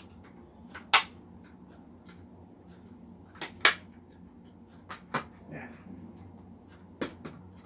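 Small plastic drill accessories being handled: a run of sharp clicks and taps, some in quick pairs, the loudest about a second in, over a low steady hum.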